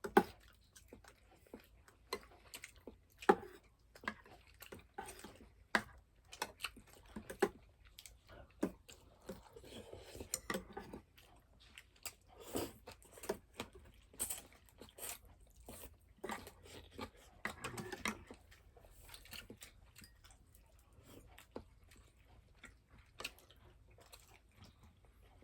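A person chewing and crunching crisp food close to the microphone, with irregular sharp crunches and clicks, the loudest right at the start and about three seconds in.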